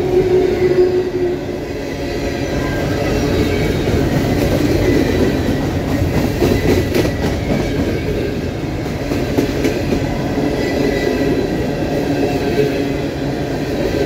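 Empty coal hopper cars of a freight train rolling past at track speed: a steady loud rumble and rattle of steel wheels on the rails, with a few clanks about six to seven seconds in.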